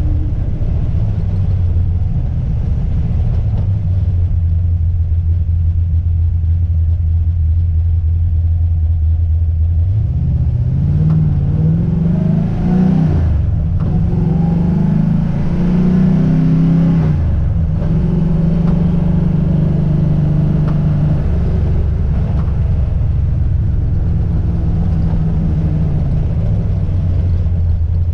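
Car engine and road noise while driving: the engine holds steady, then rises in pitch about ten seconds in, drops back with a gear change, rises again and shifts once more, then settles into a steady cruise.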